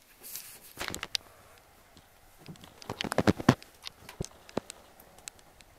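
Handling noise in a truck cab: scattered light clicks and knocks, with a quick run of sharp clicks about halfway through and a brief rustle near the start.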